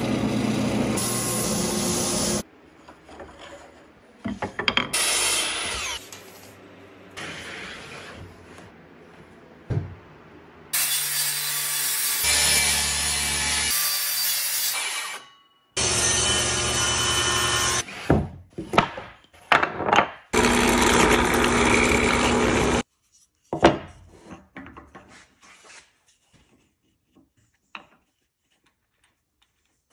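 A string of short woodworking power-tool sounds that start and stop abruptly, including a wood lathe spinning while a gouge cuts a wooden spindle and a circular saw cutting through plywood, with knocks in between. Near the end it drops to quiet hand work with faint rubbing and clicks.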